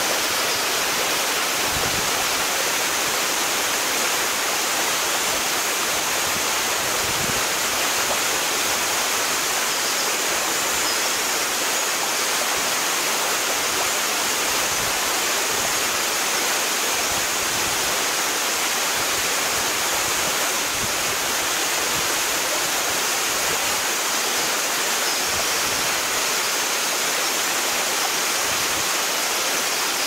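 Twin waterfall, two streams falling down a rock face into one plunge pool, heard close up as a steady, even rush of falling water.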